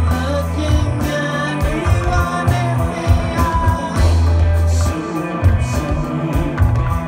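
A live psychedelic rock band playing, with a heavy, melodic bass line and a voice singing over it.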